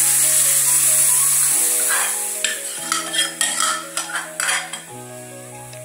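Hot coconut oil with mustard seeds and curry leaves sizzling as thick coconut curry is poured into the tempering pan, the hiss fading over the next few seconds. A steel ladle scrapes and clinks against the metal pot as the last of the curry is scooped out.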